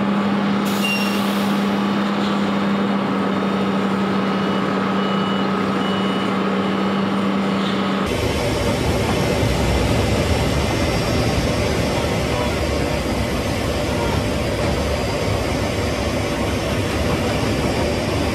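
Steady machinery noise during cargo-plane unloading. First comes a steady low hum with a higher whine and a few short repeated beeps. About eight seconds in it gives way to a louder, rough, steady rumble in the aircraft's cargo hold.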